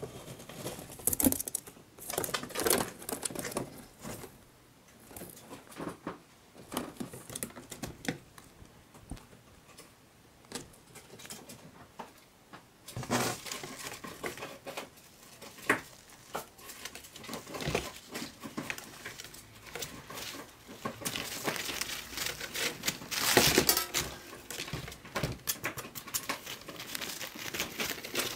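A degu pulling at and tearing tissue paper: irregular crinkling and ripping with small scratches and taps on cardboard, busiest in the last third.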